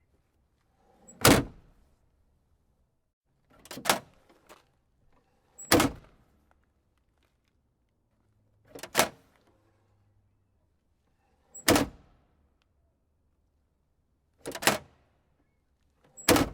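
A car trunk lid being shut, making a solid thunk seven times, every two to three seconds, several of them with a lighter click just before the main thunk.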